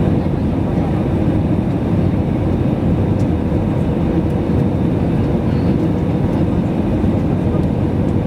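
Steady cabin noise of an Airbus A320-214 in flight, its CFM56 engines and the airflow making a constant low rumble with a faint steady hum above it.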